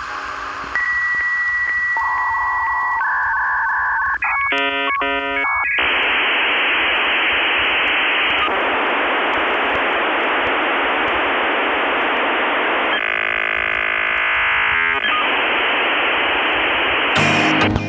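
Dial-up modem connecting over a phone line. A steady high tone gives way to switching tones and a warbling handshake, then a long rushing hiss with a short buzzing stretch in the middle. Music cuts in near the end.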